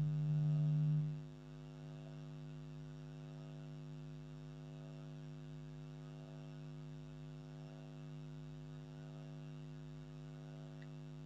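Steady electrical hum with a buzzy stack of overtones. It is loud for about the first second, then drops to a lower level and holds steady.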